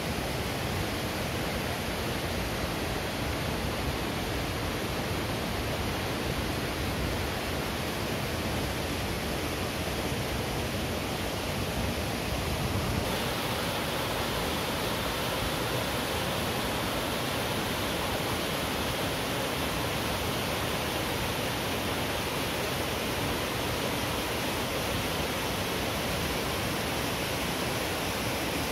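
Waterfall pouring steadily: a constant rushing of falling water, with more hiss in the upper range from about halfway through.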